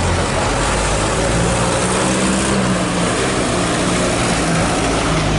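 Heavy diesel vehicle engines running steadily, with a continuous rumble and traffic noise.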